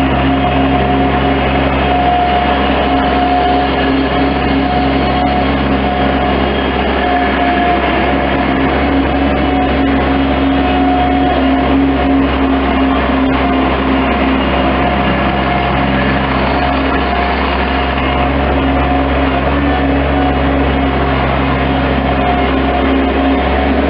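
Bobcat MT-85 stand-on loader's engine running steadily at an even speed.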